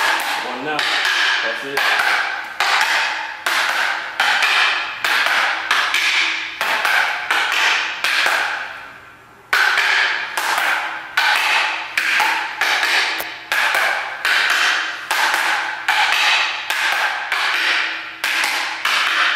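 Long wooden fighting sticks clacking together in a rhythmic two-person stick-fighting drill, a bit more than one sharp knock a second. Each strike rings briefly and echoes in a hard concrete room, with a short pause just before the halfway point.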